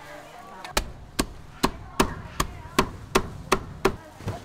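A knife chopping on a chopping board: about nine sharp, even strokes at roughly two and a half a second, starting under a second in.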